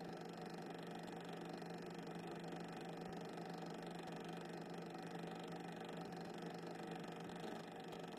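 Steady low hum with hiss and no distinct events. It does not change when the picture cuts between scenes, so it is background noise laid under silent film rather than the trains on screen.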